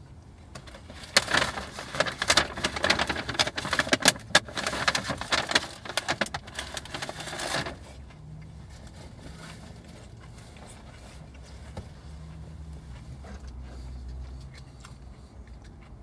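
Crinkling and rustling of takeout packaging, loud and crackly for about seven seconds. It then stops, leaving a low steady hum.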